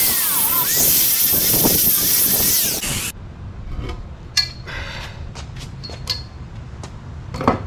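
Angle grinder cutting off the excess length of a bolt: a loud grinding rush with a whine that dips and rises as the disc bites. It stops abruptly about three seconds in, leaving a few light clicks and knocks.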